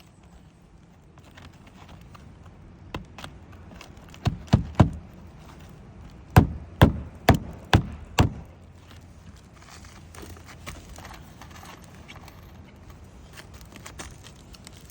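Hammer blows on a roof, nailing a shingle back down. Two light knocks about three seconds in, then three hard strikes, then five more at about two a second, with fainter knocks and shuffling between.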